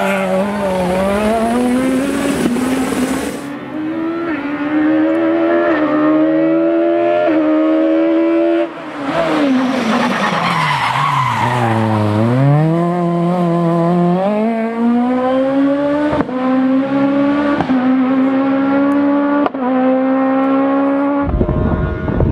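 Peugeot 306 Maxi kit car's naturally aspirated four-cylinder engine at full throttle, revving hard and upshifting quickly several times. About ten seconds in the revs fall away through downshifts, then it pulls up through the gears again and holds high revs. Near the end the engine sound cuts off abruptly to a loud rush of noise.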